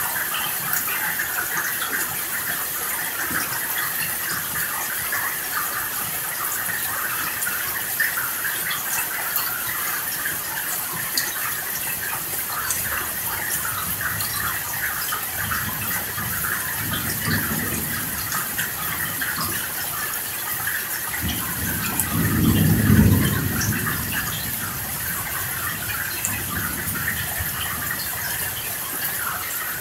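Steady rain hissing throughout a thunderstorm, with thunder rolling in low underneath. A weak rumble comes past the middle, the loudest roll about three quarters of the way through, and a fainter one near the end.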